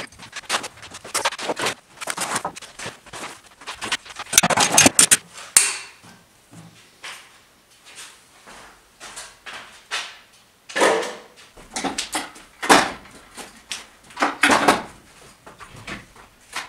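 Boxes and small items being handled on a wooden workshop shelf: irregular knocks, clatter and scraping, with a louder flurry about four to five seconds in and several more sharp knocks in the second half.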